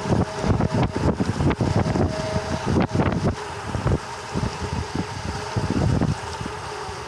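Wind buffeting the microphone of a bicycle descending a wet road in the rain, an uneven gusty rush with road noise underneath.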